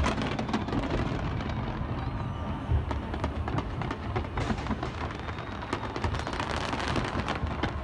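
Large fireworks display: a dense, continuous crackle of many small pops over low booms, with one louder bang about three seconds in.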